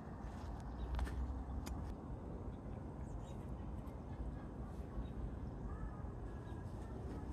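Outdoor background noise: a steady low rumble with a couple of faint clicks and a few short faint chirps.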